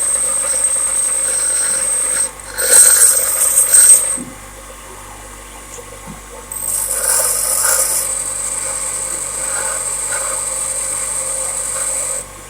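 A grinder grinding a high-speed steel lathe tool bit in three passes with a high steady whine. The first pass lasts about two seconds, a shorter, louder one follows, and a long pass of about five seconds comes near the end. Between the passes it goes much quieter.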